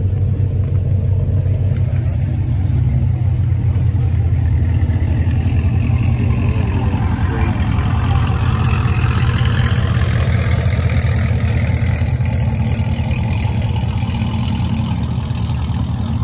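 Muscle cars' exhausts rumbling low and steady as they roll slowly through a parking lot: a Ford Shelby GT500 with its supercharged V8, then a Chevrolet Camaro.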